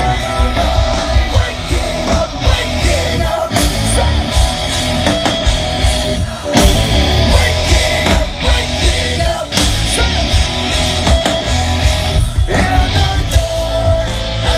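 Rock band playing live, heard from the crowd: drums, bass and electric guitars with singing.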